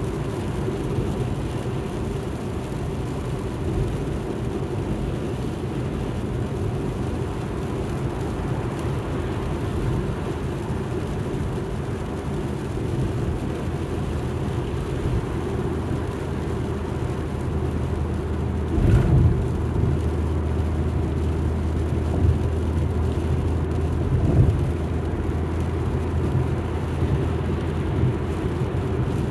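Alfa Romeo MiTo driving: a steady low engine hum and road rumble, with a single sharp bump about two-thirds of the way through.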